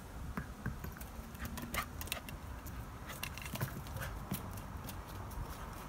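Bernese Mountain Dog puppy's claws clicking and scuffing on concrete paving slabs as it trots and turns, in scattered, irregular taps.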